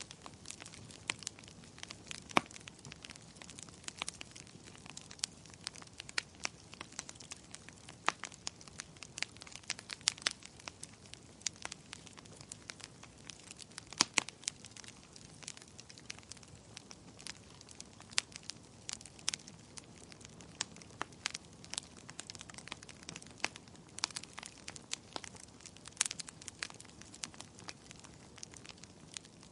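Wood fire crackling: irregular sharp snaps and pops, several a second, with a few louder pops, over a faint steady hiss.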